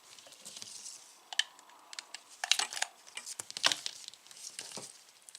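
Small gear being handled by hand: irregular clicks, taps and short rustles, busiest in the middle.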